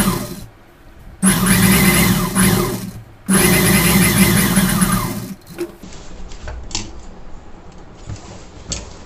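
Industrial sewing machine stitching in bursts as an edge stitch is run along a pocket seam: a brief run at the start, then two longer runs of steady motor hum and rapid needle ticking, stopping about five and a half seconds in.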